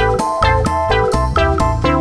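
Upbeat background music: melodic instrument notes over a bass line, with new notes starting at a quick, steady beat.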